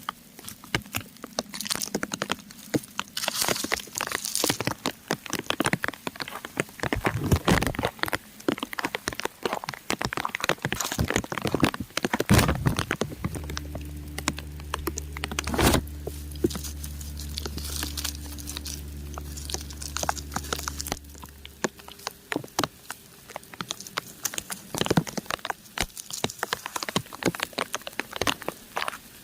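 Raindrops pattering on crumbling rock: a dense, irregular stream of small clicks and ticks. About halfway through, a low steady hum with several tones comes in for about eight seconds, then stops.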